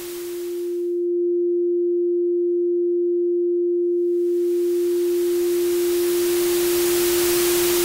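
Synthesized oscillator and white noise: a steady pure sine tone holds throughout, while hissing white noise fades out within the first second. The bare tone sounds alone for about three seconds, then the noise fades back in and swells under it. It demonstrates the difference between a pitched tone and noise.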